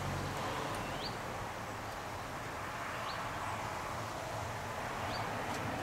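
Low, steady rumble of a distant freight train with an electric locomotive, under an outdoor wash of noise, while a bird gives a short rising call three times, about two seconds apart.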